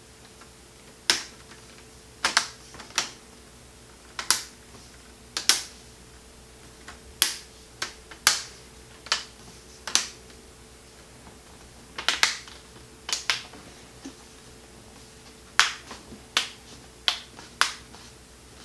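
Plastic laptop screen bezel snapping onto the display lid, its clips catching one after another as it is pressed around the edges. About eighteen sharp clicks come at uneven intervals of roughly a second, some in quick pairs.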